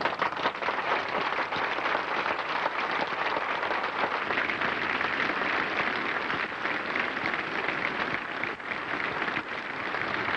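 A large crowd applauding, a dense and steady clapping.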